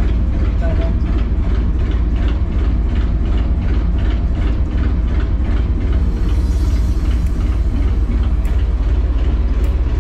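Lifeboat's inboard diesel engine running at low speed, a loud steady low drone with a regular knock about three times a second, heard from inside the enclosed hull.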